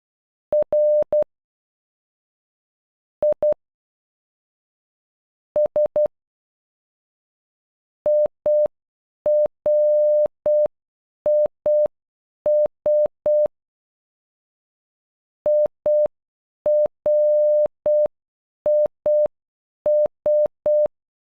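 A single steady electronic tone of about 600 Hz keyed on and off in Morse code dots and dashes, spelling IRIS (.. .-. .. ...). First the letters R, I and S come one at a time with long pauses between them, then from about eight seconds in the whole word plays twice at half speed, with longer beeps and gaps.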